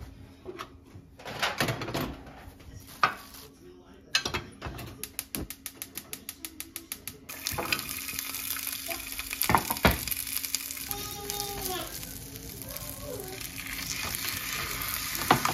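Cookware knocks on a gas hob, then a gas burner's igniter clicking rapidly for about three seconds, then steady sizzling as strips of fish cake hit a hot oiled frying pan, with a few loud knocks from the cutting board and chopsticks stirring.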